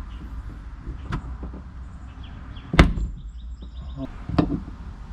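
Three sharp clicks or knocks, the loudest about halfway through, as plastic wiring clips in a car's roof are worked loose by hand.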